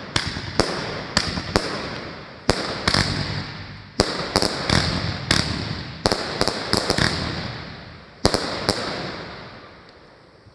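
Aerial fireworks from a consumer firework cake bursting overhead: a string of about sixteen sharp bangs, some singly and some in quick clusters, each trailing off. The last bang comes a little after eight seconds in, and the sound dies away near the end.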